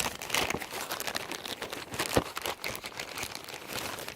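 Plastic packaging crinkling and rustling as it is handled, with a sharper click about two seconds in.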